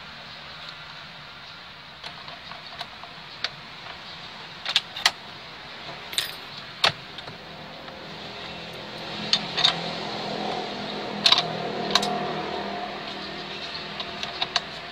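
Plastic and metal steering-column parts of a Toyota Avanza being handled and fitted back together: scattered sharp clicks and clinks, a dozen or so at uneven intervals, over a steady background hum.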